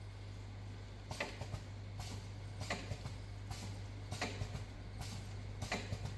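Small-sachet packaging machine cycling: its film-pulling rollers, sealing jaws and cutter clack in short clusters of clicks about every three quarters of a second, over a steady low hum.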